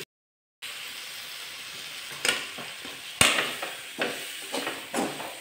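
Onion-tomato masala frying with a steady sizzle in a metal kadai while it is stirred, the spoon scraping and knocking against the pan every second or so. It starts after a short moment of dead silence.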